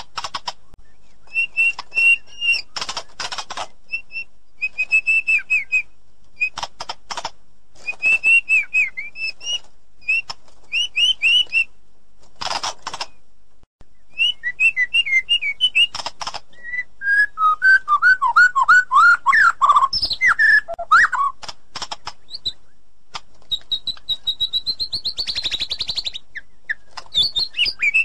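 White-rumped shama singing a long, varied song: clear whistled phrases broken up by harsh rasping notes, with a run of quick falling whistles about two-thirds of the way through.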